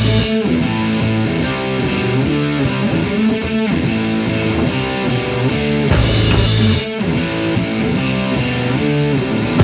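Background rock music led by electric guitar over a bass line, with a bright crash about six seconds in.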